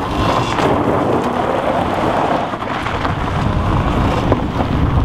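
A Renault Twingo's tyres spin and crunch across loose gravel as the car pulls away hard, spraying stones in a steady rushing noise with a low rumble under it. A few sharp clicks of flying stones cut through.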